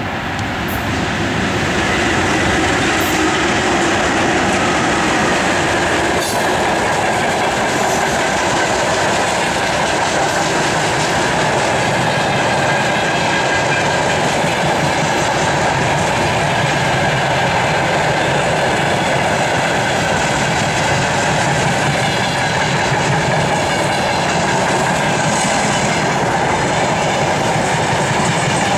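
Freight train hauled by a VL80T electric locomotive passing close by, its wagons' wheels rolling steadily over the rails. The sound grows louder over the first couple of seconds as the locomotive comes past, then holds steady as the long train of wagons rolls by.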